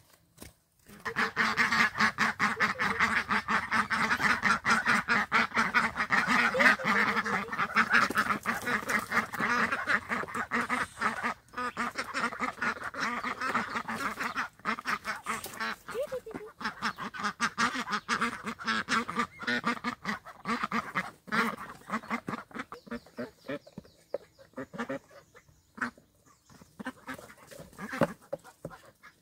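A flock of ducks quacking together in a dense, continuous chorus that starts about a second in and thins out toward the end.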